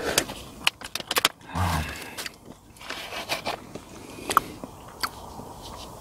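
Close eating sounds of a person biting and chewing boneless jokbal (braised pig's trotters), with scattered sharp clicks and scrapes of food and packaging being handled. A brief low hum comes about one and a half seconds in.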